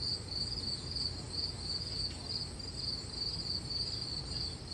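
Crickets chirping in a steady, pulsing high trill over a low rumble.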